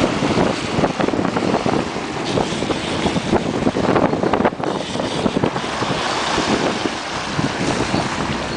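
Gusty wind buffeting the microphone on a boat at sea, over the wash of choppy water alongside the hull.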